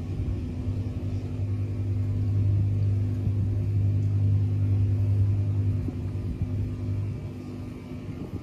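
A motor running steadily with a low, even hum, fading away about seven seconds in.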